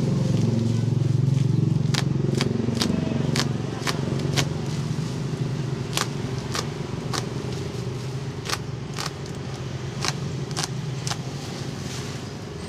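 Plastic packaging wrap snapping and crackling in sharp, scattered clicks as a box cutter slices it and hands peel it back. Under it runs the steady low hum of a motor vehicle's engine, loudest in the first couple of seconds and slowly fading.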